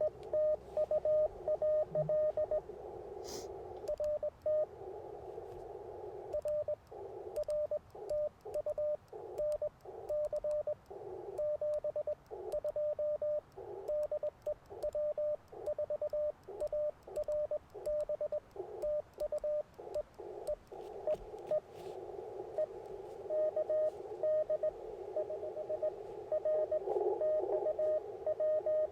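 Morse code (CW) from an Icom IC-705 transceiver: a single steady mid-pitched tone keyed on and off in dots and dashes. Narrow-filtered band hiss fills the gaps, with a short stretch of hiss alone about four seconds in.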